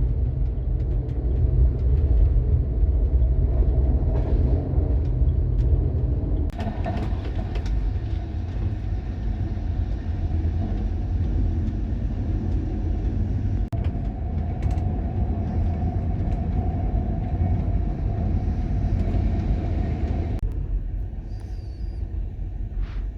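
Sleeper train running along the rails, a steady low rumble. The sound changes abruptly about six seconds in and again near the end.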